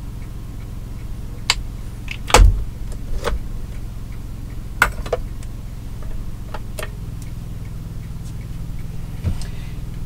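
Steady low mechanical hum from the running 2,000-watt generator and the air conditioning, growing a little louder about seven seconds in. Over it, scattered clicks and knocks of things being handled on a kitchen counter, the loudest about two and a half seconds in.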